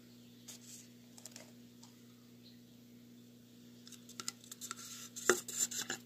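Faint scattered clicks, then a busier run of sharp clicks and rustling over the last two seconds, loudest near the end, over a steady low hum.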